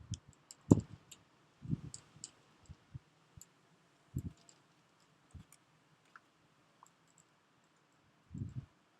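Irregular low thumps and small clicks against a quiet background, the loudest thump less than a second in.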